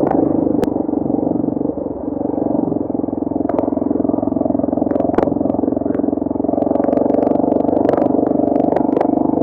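Motorbike engine running at a steady speed, heard through badly distorted, muffled audio, with scattered clicks and knocks.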